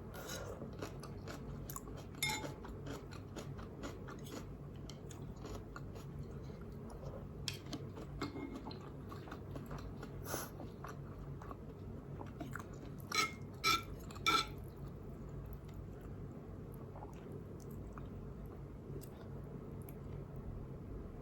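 Close-up chewing and slurping of spicy instant noodles, with small wet clicks throughout. Near the two-thirds mark a utensil clinks sharply against the bowl three times, with a brief ring.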